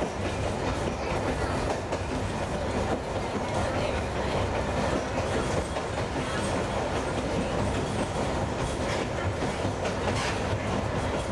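RedHen diesel railcar running along the track, heard from inside the driver's cab: a steady engine and running drone with the wheels clicking over the rails now and then.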